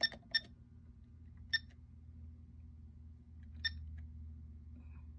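Passap E8000 knitting machine console keypad beeping as keys are pressed: four short electronic beeps, two close together at the start, one about a second and a half in, and one near four seconds in.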